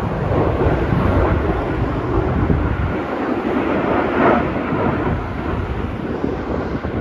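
Jet aircraft roar rumbling overhead, with wind buffeting the microphone; the deepest rumble eases about three seconds in.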